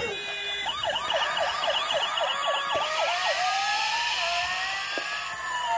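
Electronic siren sound effect from a battery-powered toy fire truck: a fast warbling yelp about four times a second, then a slow wail that rises and falls.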